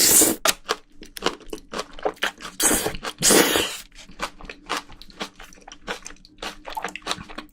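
Close-miked crunching and chewing of a mouthful of soybean sprouts from a spicy braised seafood dish. Loud bites at the start and again about three seconds in, then a steady run of crisp crunches several times a second.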